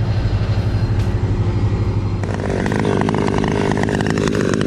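Chainsaw engine running with a pulsing low note. About two seconds in, a higher, buzzier note comes in as the saw goes to full throttle.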